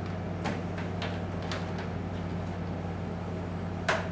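Steady low hum with a few light clicks and taps, the loudest a sharp knock near the end.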